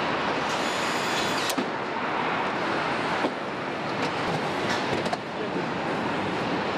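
Car assembly-line noise: a steady machinery din with scattered sharp clicks and knocks. A handheld cordless nutrunner whirs for about a second near the start.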